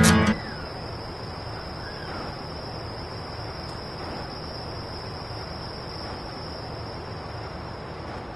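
Crickets trilling in one steady, unbroken high note over a faint outdoor background hiss.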